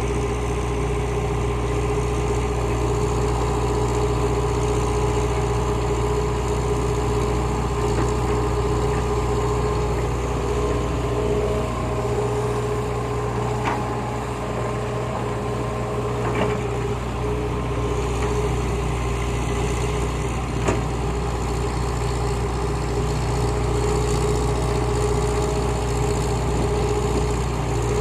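Heavy diesel engines of a Hitachi excavator and a Fuso dump truck running steadily: a constant low hum with a steady whine over it.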